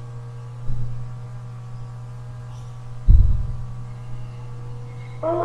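Steady low electrical hum, broken by two dull knocks, the second and louder about three seconds in; a voice starts right at the end.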